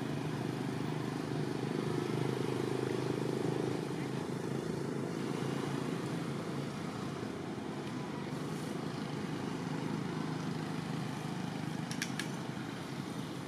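Steady low rumble of outdoor background noise, with two faint clicks about twelve seconds in.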